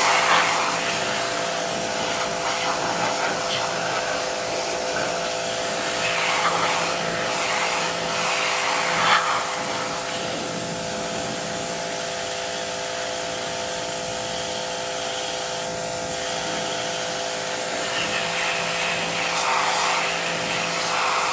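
Electric pressure washer running, its water jet spraying on a motorcycle's rear chain and sprocket to rinse off degreaser-softened grime. A steady hiss of spray over the motor's hum, cutting off suddenly at the end.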